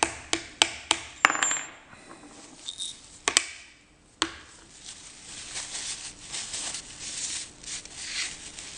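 Small steel parts of a lathe tailstock's split-cotter lock clicking sharply, about six times in the first four seconds, as they are taken apart and handled. After that comes a steady rustle of a cloth rag rubbing over the parts as they are wiped clean.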